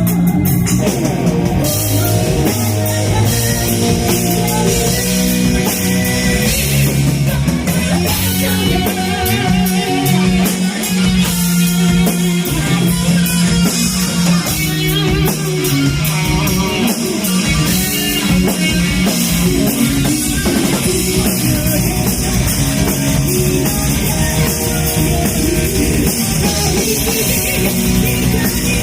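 Live metal band playing loud and dense: drum kit, distorted electric guitars and bass.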